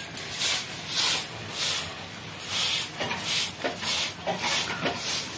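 Short handheld grass broom sweeping a dusty dirt floor: a steady run of dry swishes, about two strokes a second.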